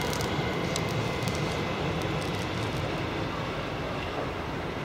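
DB Class 440 electric multiple unit running away along the station tracks: a steady rumble that slowly fades, with a few sharp clicks in the first second and a half and a faint high whine that dies away about half a second in.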